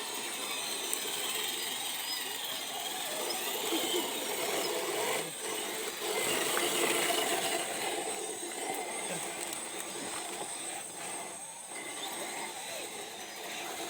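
Electric motor and geared drivetrain of an RC rock crawler whirring steadily as it crawls over the terrain, mixed with outdoor noise.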